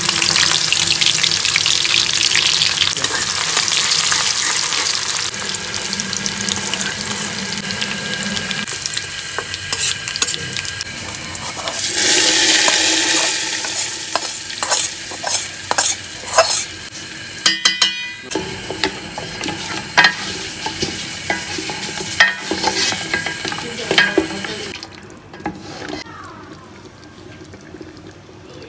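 Onions and red chillies deep-frying in hot oil in a wok, a steady loud sizzle. About twelve seconds in, a louder surge of sizzling as the hot oil and fried garlic are poured over the nihari as a tempering (tadka), then scattered pops and crackles that die down near the end.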